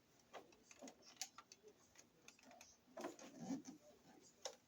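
Faint, irregular small clicks and taps of hands handling the plastic back panel and filter of a small dehumidifier.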